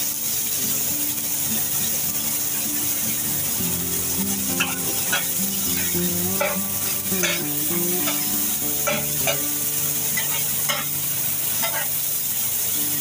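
Chopped onion sizzling in oil on a large hot tawa griddle. A slotted metal spatula scrapes and taps against the griddle as it stirs the onion, with the scrapes coming every half second or so from about four seconds in.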